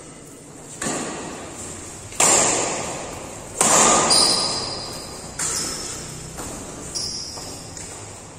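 Badminton rally: rackets smacking a shuttlecock five times, each hit sharp and echoing through the hall, the middle two loudest. A couple of short high squeaks come between the hits.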